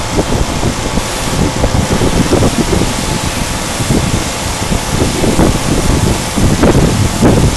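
CNC router milling acrylic plate: a loud, steady machining noise with a faint steady whine and uneven low rumbling.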